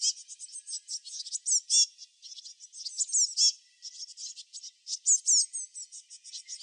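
High-pitched chirping and twittering of small birds: quick notes and fast downward-sweeping whistles in irregular bursts, with nothing low-pitched underneath.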